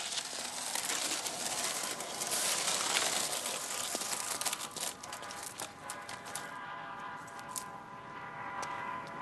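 Skateboard wheels rolling over wet asphalt, a rough rumble with small clicks and crackles. About halfway through a steady sustained chord of tones comes in as the rolling fades.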